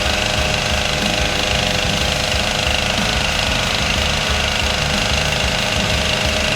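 Stihl MS 391 two-stroke chainsaw running steadily under load, ripping lengthwise through a white oak log in a chainsaw mill.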